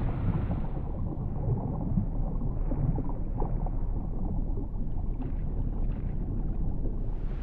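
Muffled underwater churning of pool water: a steady low rumble stirred by a swimmer's strokes and kicks, with a few faint crackles about five to six seconds in.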